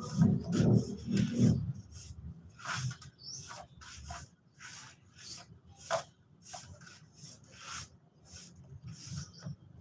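A broom sweeping a paved surface in short, repeated swishing strokes, roughly two a second. A low rumble sits under the first second and a half.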